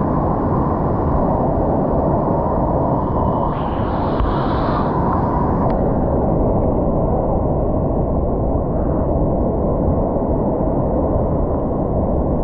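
Waterfall water rushing and falling, a loud steady noise that stays even throughout.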